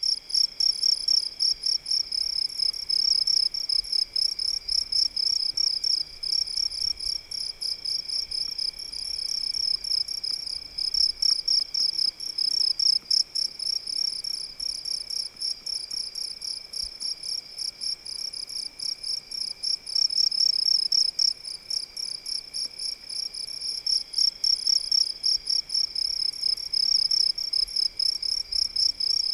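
Crickets chirping in a fast, even, high-pitched pulse, several chirps a second without a break. A fainter steady tone sits lower beneath it.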